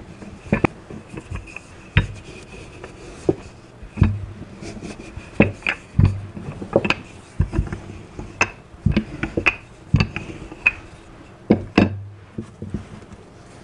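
Wooden rolling pin rolling out pie dough on a silicone baking mat: irregular knocks and thumps, a few each second, as the pin is pushed and lifted over the dough.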